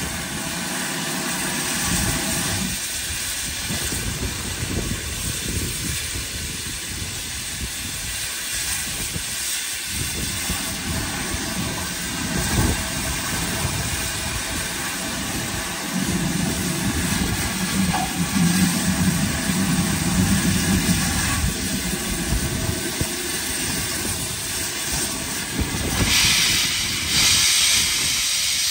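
Steam locomotive letting off steam: a steady hiss over a low rumble, the hiss growing louder near the end.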